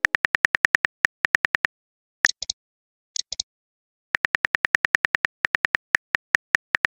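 Phone on-screen keyboard typing clicks, rapid and even at about nine taps a second. They break off for about two seconds midway, where only a few scattered clicks come, then resume at the same pace.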